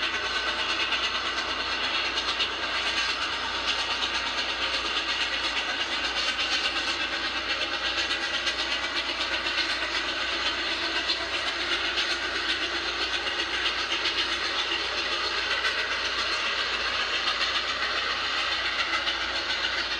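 Grand Trunk Western 4-8-4 steam locomotive and its train of freight cars passing on a runby: a steady, dense clatter of exhaust and rolling cars. It is heard as played back through a screen's speakers, with little bass.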